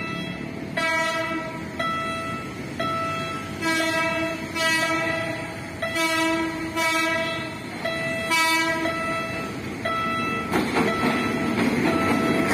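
Diesel locomotive's multi-tone air horn sounding a rapid series of about eight short blasts, the warning for a level crossing as the train approaches. Near the end the locomotive's engine and wheels come up loudly as it rolls across the crossing.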